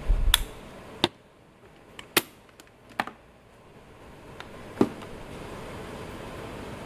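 A series of sharp, separate clicks and taps, about eight in all, irregularly spaced, with a low handling rumble under the first one.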